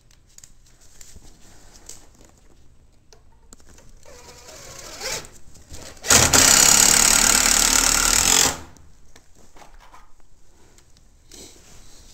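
A power drill runs in one loud burst of about two and a half seconds, starting suddenly about six seconds in, driving a screw into a new wooden floor support. Quieter handling knocks come before and after it.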